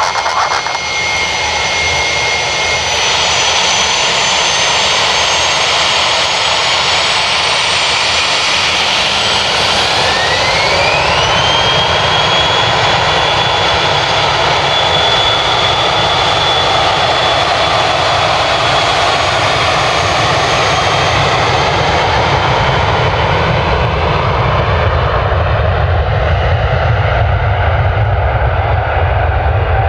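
Dassault Falcon 7X's three Pratt & Whitney Canada PW307A turbofans running up for take-off: a steady jet whine, with a tone that rises steeply about ten seconds in and then holds high as the engines reach take-off power. Later the high whine fades and a low rumble grows as the jet rolls away down the runway.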